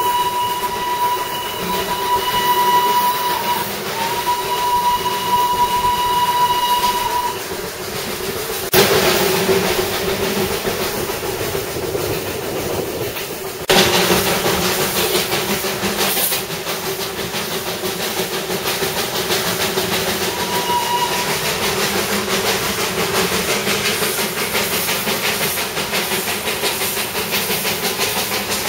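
Narrow-gauge Darjeeling Himalayan Railway steam locomotive on the move: its whistle gives two long steady blasts at the start and one short one about two-thirds of the way through, over the continuous running noise and steam hiss of the train. Near the end, a quick regular beat comes through.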